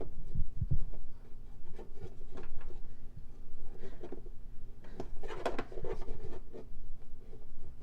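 Handling noises: scattered light clicks, knocks and rubbing as small toy boxes and packaging are opened and tossed down, with a brief burst of scuffing about five seconds in.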